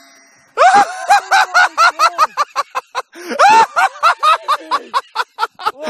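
People laughing hard: a rapid, high-pitched run of ha-ha-ha bursts starting about half a second in, with a louder peak of laughter around three and a half seconds.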